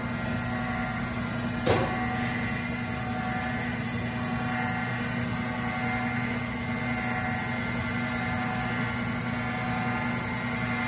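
Small combination lathe-mill running steadily with its end mill spinning, a constant machine hum, while the cutter is brought in to barely touch the workpiece. A single sharp tick comes about two seconds in.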